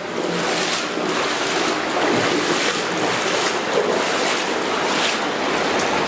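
Steady rush of flowing water in an underground river's concrete collector.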